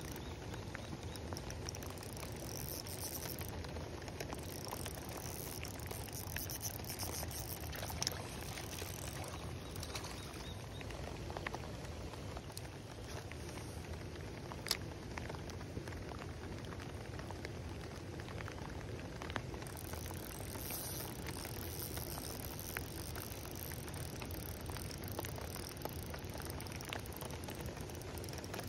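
Steady rain pattering on a pond's surface, with a few scattered sharp ticks.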